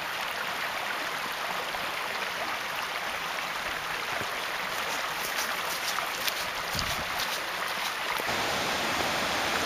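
Steady rushing of a shallow rocky beck, with a scatter of sharp ticks in the second half from footsteps on the stony track.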